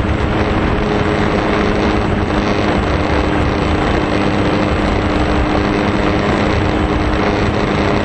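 Electric motor and propeller of an RC foam airplane at steady throttle, a constant low hum under a loud rush of wind.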